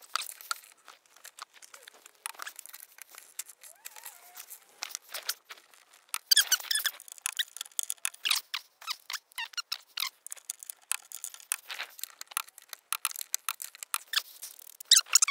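Socket ratchet clicking in irregular runs, with squeaks, as bolts are worked up into a car's underside to fit a jacking rail. The densest run of clicks comes about six to seven seconds in.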